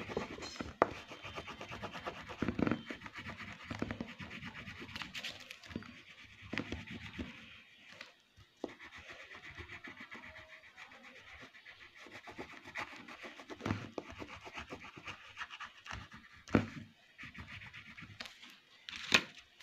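Colouring on paper: quick back-and-forth scratching strokes rubbing over the sheet as the shape is filled in, with a few brief louder taps.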